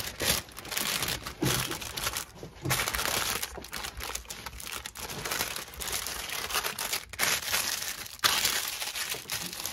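Wax paper crinkling and rustling in irregular stop-start bursts as it is folded by hand around sticks of soft butter.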